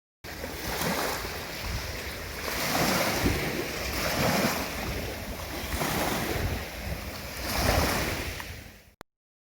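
Sea waves washing onto the shore, the surf swelling and fading every couple of seconds, with wind on the microphone.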